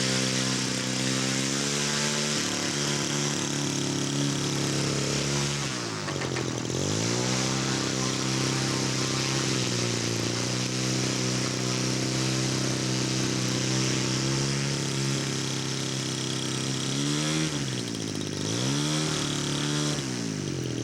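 Radio-controlled model airplane's glow engine running steadily. It is throttled down and back up about six seconds in, and twice more near the end.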